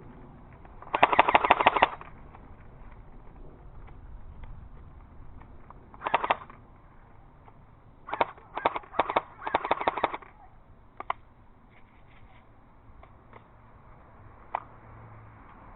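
Airsoft guns firing: a loud rapid burst about a second in, a short burst near six seconds, several quick bursts around eight to ten seconds, then a few single shots.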